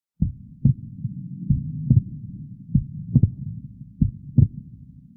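Recorded heart sounds: paired lub-dub beats repeating about every 1.25 seconds, a slow rate, with a steady murmur filling the gaps between the beats. The sound starts just after the opening moment.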